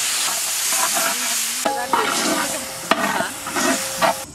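Shallots, chillies and tomatoes sizzling in hot oil in a large metal pan while a metal ladle stirs them, scraping and clinking against the pan with a short ringing note from about the middle on.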